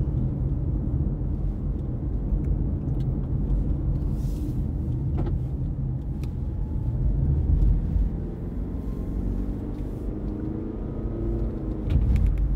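Steady low rumble of a running vehicle, with faint tones that shift in pitch in the later seconds.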